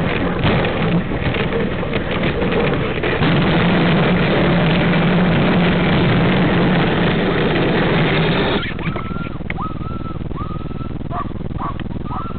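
Dog sled runners hissing and scraping over packed snow, a loud steady noise that cuts off suddenly about eight and a half seconds in as the sled comes to a halt. Then the sled huskies whine and yelp in a run of short, high calls.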